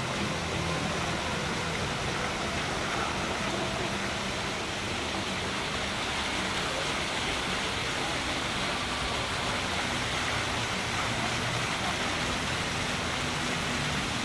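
Water from a row of fountain jets splashing in a steady, even hiss, with faint voices murmuring underneath.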